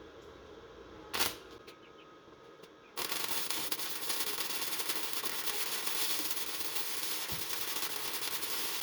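A sharp click about a second in, then about three seconds in a welding arc strikes and crackles steadily as a practice bead is run back over an earlier weld.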